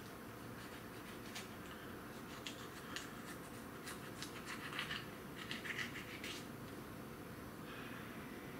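Chili pepper pods being cut open by hand: faint, scattered clicks of the blade and brief scraping and rubbing sounds, busiest in the middle.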